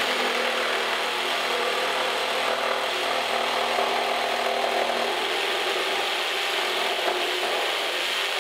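DEWALT DCS312 12-volt XTREME subcompact one-handed reciprocating saw running steadily, its blade cutting through a wooden board.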